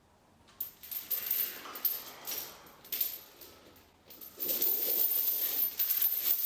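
Metal gym equipment clinking and jingling in a quick run of rattles, settling into steadier jingling from about four seconds in.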